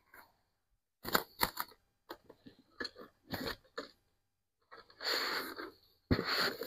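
Paper and cardboard packaging rustling and crinkling as hands sort through a cardboard shipping box, with scattered sharp clicks and longer rustles about five and six seconds in.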